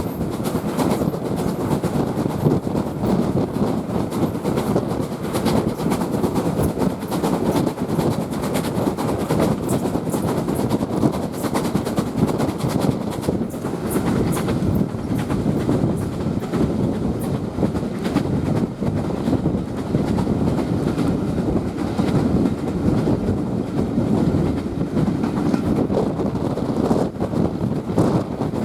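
Aboard a steam-hauled passenger train running along the line: a steady rumble from the carriage, with the wheels clicking over rail joints.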